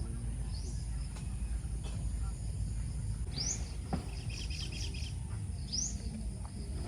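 Outdoor ambience: a steady high insect drone over a low rumble. A bird gives two short, sharp calls about three and a half and six seconds in, with a brief chattering trill between them.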